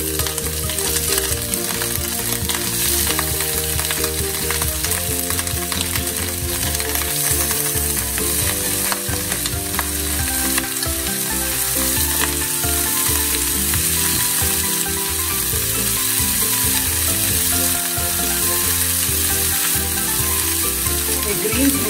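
Chopped vegetables sizzling steadily in hot ghee in a ceramic frying pan as they are tipped in and pushed about with a spatula.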